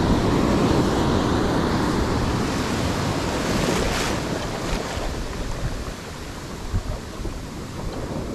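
Ocean surf breaking and washing up a sandy beach, a steady rush that is loudest at first and slowly dies away over several seconds, with wind buffeting the microphone.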